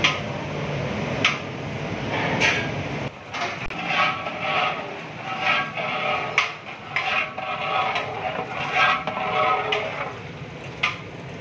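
Steady rush of gas burner flames under large aluminium cooking pots. From about three seconds in, a long metal ladle scrapes and knocks against the inside of a pot in repeated strokes as thick meat gravy is stirred, with a few sharp knocks along the way.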